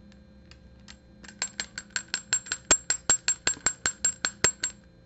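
Fly-tying hair stacker holding a pinch of elk hair, tapped rapidly on the bench to even the hair tips. After a few faint clicks, the taps start about a second in and run at about five a second for some three seconds, then stop.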